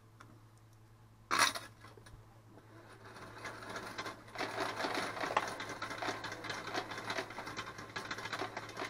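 A short clatter of coins about a second in, then a motorized coin sorter starts up and runs with a dense rattle of coins clicking through its sorting track, growing louder. The sorter is not sorting properly: it is dropping coins into the wrong slots.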